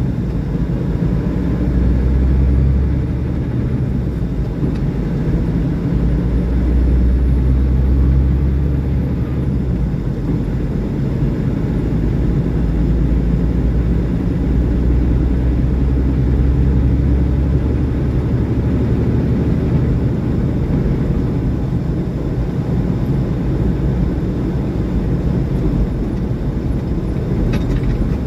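Semi truck running at road speed: a steady, low diesel engine drone with tyre and road noise. There is a single click near the end.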